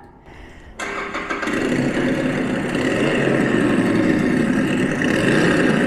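Motorcycle engine sound effect played from a speaker in a scrap-metal motorcycle sculpture, set off by a push button. It starts about a second in, grows louder over the next half second, then keeps running steadily.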